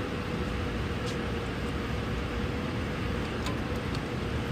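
Steady background machinery hum with a faint held tone, with a couple of faint light clicks about a second in and again past three seconds.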